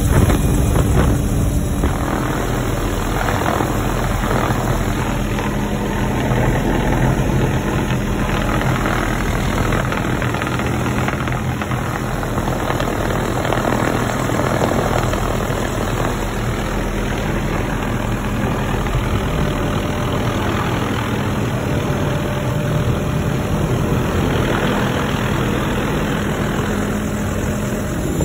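Helicopter turbine engine and rotor running steadily, heard from inside the open, doors-off cabin with air rushing past, as the aircraft comes down onto a grassy landing site.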